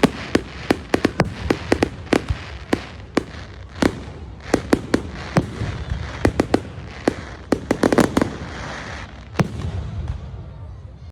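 Fireworks going off: a quick, irregular string of sharp bangs and cracks, several a second, over a low rumble, with a denser crackling cluster about eight seconds in.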